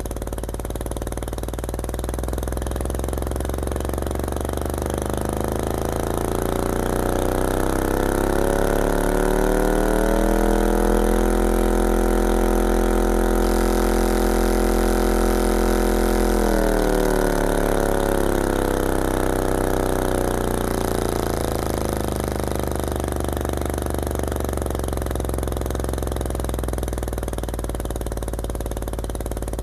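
Dayton Audio Epique E150HE-44 5.5-inch subwoofer driver, unenclosed, playing a very low sine tone from a signal generator at high cone excursion, with a buzzy, engine-like overtone on top. The pitch climbs, holds for several seconds at its loudest, then sinks back down.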